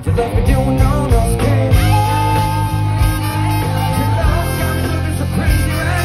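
Live band music with electric guitar and drums playing loudly and steadily, with one long held high note from about two seconds in until about four seconds in.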